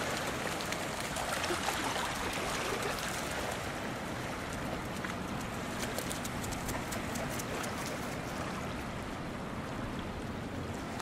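Shallow water splashing and rushing as a dog runs through it, a steady wash of water noise dotted with small splashes.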